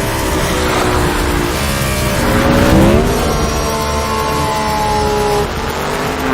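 Race car engine running hard, played backwards: its pitch dips and then climbs steeply about halfway through, holds higher, and drops near the end.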